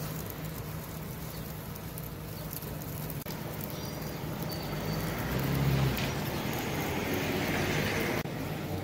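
Steady low machine hum under background noise, the location sound of a bakery; it shifts abruptly about three seconds in and again near the end.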